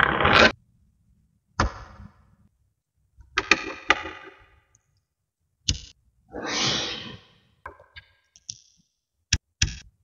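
Small magnetic balls clicking and clattering against each other as a flat sheet of them is rolled up and pressed into a cylinder. The sound comes in several short bursts of rattling with single sharp snaps between them, and two sharp clicks near the end.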